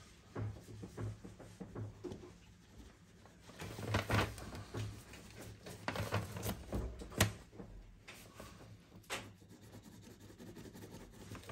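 Short, scattered scratching strokes of a drawing tool on paper as hatching is laid into a sketch, over a faint low hum.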